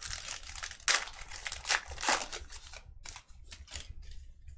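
Crinkling and tearing of packaging as sports card packs are opened: a run of sharp rustles and crackles, the loudest about a second in and again around two seconds in.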